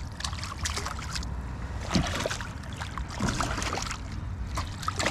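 Water lapping and trickling against a kayak hull over a steady low rumble, with a few short knocks about two seconds in, again a second later, and near the end.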